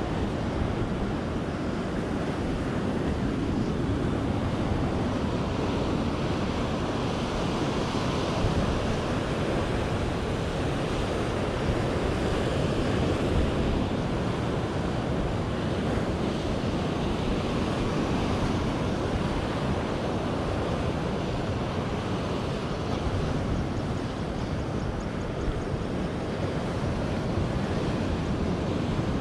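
Ocean surf breaking and washing over a rocky shoreline as a steady rush of noise, with some wind noise on the microphone.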